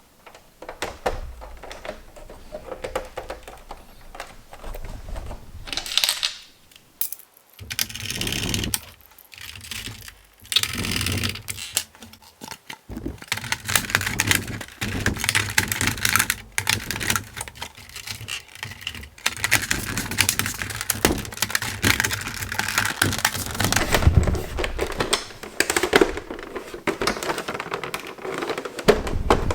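Plastic and metal parts of a PS3 Slim console being handled: quick clicks, taps and rattles with brief scraping and rubbing, in bursts throughout.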